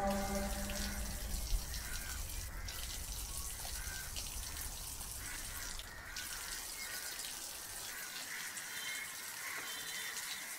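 A tap running steadily, its stream splashing over hands during wudu, heard faintly.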